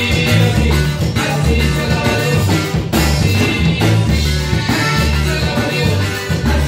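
Live norteño band playing: accordion, saxophone, acoustic guitar, electric bass and drum kit, over a steady driving beat with a strong bass line.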